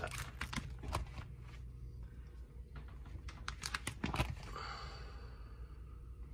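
Clear plastic binder sleeve pages crinkling and rustling as a page is turned, with a few light clicks and taps near the start and again about four seconds in.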